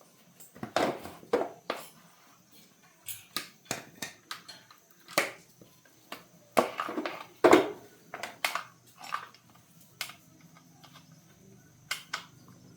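Irregular knocks, clicks and scrapes of hand work with tools and hard parts: about a dozen sharp strokes, loudest a little past the middle, growing sparser toward the end.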